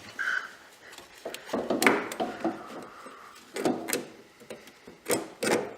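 Several sharp metallic knocks and clunks with some rubbing between them, from hands-on work seating a rear coilover spring on a Fox-body Mustang.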